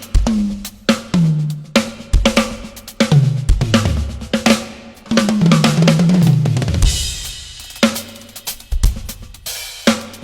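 Drum kit played in fast fills: tuned toms ringing with a clear pitch that steps lower and lower around the kit, with snare and bass drum strokes. A cymbal crash washes over the kit about seven seconds in, followed by scattered kick and snare hits.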